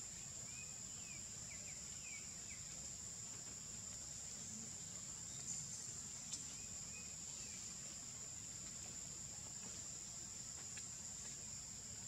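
Steady high-pitched drone of insects in forest, with a few faint short chirps in the first couple of seconds and again a little past the middle.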